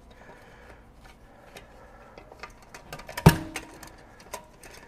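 JM3 oil filter wrench clicking against a dented steel oil filter canister as it is squeezed, with one sharp knock and a short ring about three seconds in and a smaller knock a second later. The wrench's jaws are not getting a good bite on the dented filter.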